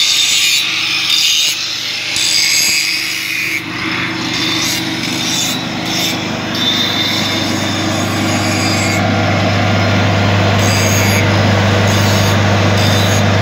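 Arc welding crackling and hissing for the first few seconds, then the Kubota diesel engine of a KOVO EW400DST engine-driven welder-generator running steadily under welding load; the engine hum grows louder about a third of the way in and then holds steady.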